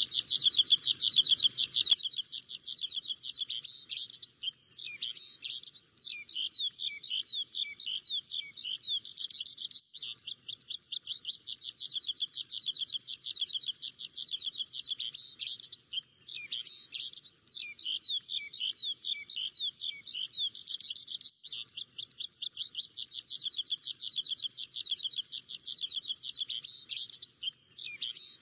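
Small birds chirping rapidly and without a break, a dense chorus of short high chirps. A low rumble underneath cuts off about two seconds in, and the chirping is a little quieter after that.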